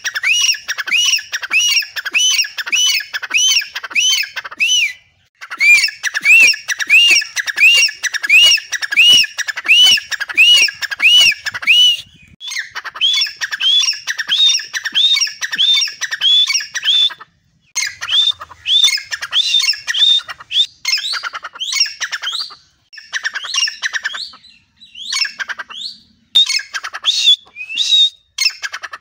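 Grey francolin calling: a loud run of arched notes repeated about two to three times a second, broken by short pauses into phrases several seconds long. In the last third the notes turn shorter, more rising and less regular.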